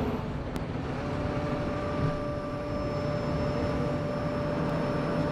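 Bus engine and road noise heard from the front of the cabin, steady, with a faint high whine held from about a second in.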